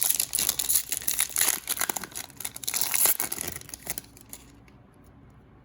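Plastic wrapper of a 2021-22 Donruss Optic Basketball trading-card pack crinkling and tearing as the pack is ripped open by hand, stopping about four seconds in.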